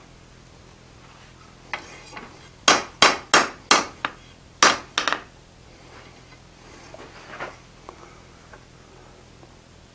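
Blacksmith's hand hammer striking a hot iron bar on the anvil face: six sharp blows in quick succession, about a blow every third of a second. A few lighter knocks follow about seven seconds in.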